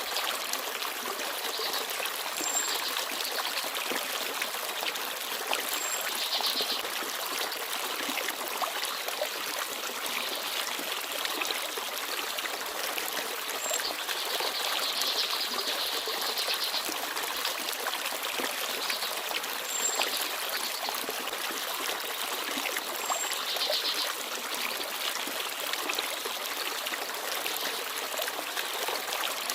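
Forest stream babbling and trickling steadily, with a few brief, very high chirps from small birds now and then.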